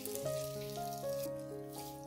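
Background music of held notes changing pitch. Under it, water from grated zucchini squeezed by hand trickles and splashes through a metal sieve into a bowl.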